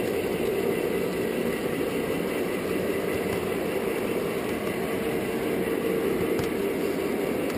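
An O scale model train running steadily along three-rail track, heard from a flat car riding the rails: an even rolling rumble of wheels and motor.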